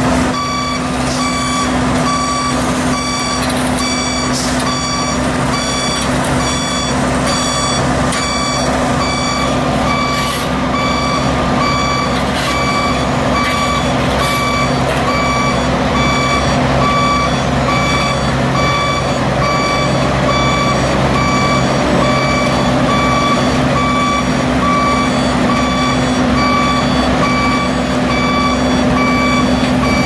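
Asphalt paver's diesel engine running steadily under a backup alarm beeping about once a second.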